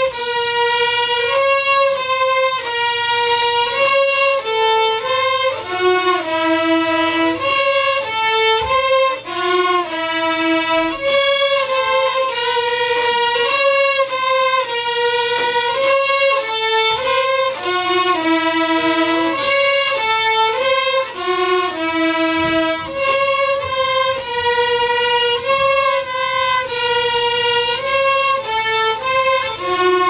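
A small ensemble of student violins plays a slow melody in unison, a short phrase of sustained notes repeated over and over. The melody is built from the notes that spell out "Rest in peace, Jaime" in a musical cipher.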